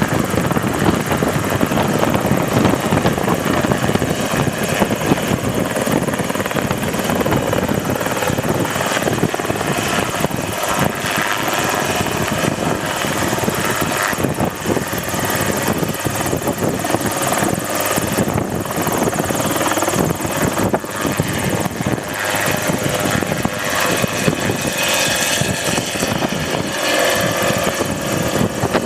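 Ultralight helicopter's engine and rotor running at a steady level.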